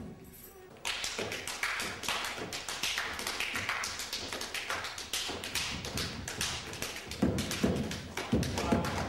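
Many dancers' boots stepping and stamping on a wooden stage floor: a dense, irregular run of taps starting about a second in, with heavier stamps near the end.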